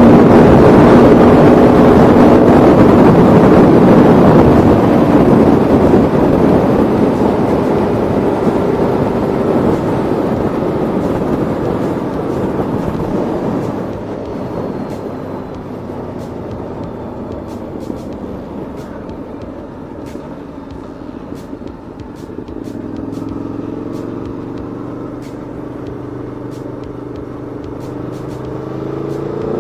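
Aprilia Tuono V4 1100 Factory's V4 engine running under way with a rush of wind noise, loud at first and easing off through the middle. Near the end the engine note rises again as the bike accelerates.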